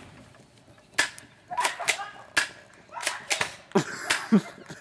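A string of about ten sharp smacks, irregularly spaced, with short bits of voice among them near the end.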